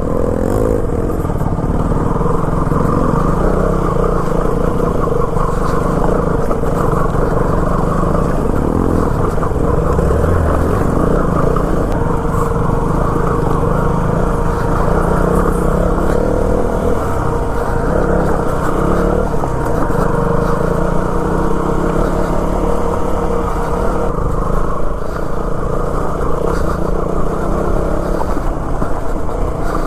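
Motorcycle engine running at a steady note while the bike is ridden.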